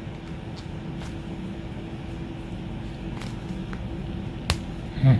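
Steady low background hum, then a single sharp snap about four and a half seconds in: a TOHO 8-inch wire stripper plier stripping the insulation off a thick electrical cable.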